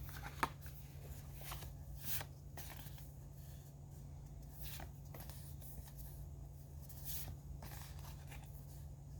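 Soft, scattered rustles and taps of card-stock lobby cards being handled and flipped through one by one, over a faint low steady hum.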